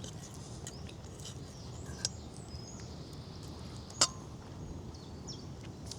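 A fork clinks once against a metal frying pan about four seconds in, with a softer tap near two seconds. Faint bird chirps sound over a quiet outdoor background.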